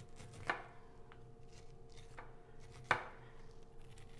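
Santoku knife slicing kernels off a cooked corn cob on a cutting board, with faint scraping strokes down the cob. The blade knocks sharply against the board twice, about half a second in and just before the three-second mark.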